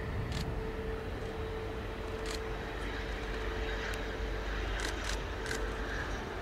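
Aero L-159A Alca's single turbofan jet engine running through its landing roll-out, a steady rumble with a steady mid-pitched tone in it. A handful of short sharp clicks sound over it, about five in all, three of them close together near the end.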